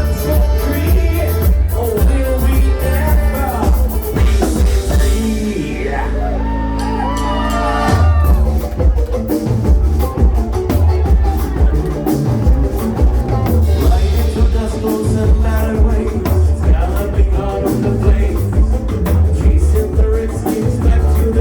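Live band playing a country-and-bluegrass-style cover of a heavy-metal song, with a steady drum beat. About six seconds in, the beat drops out for a couple of seconds over a held low note, then the full band kicks back in.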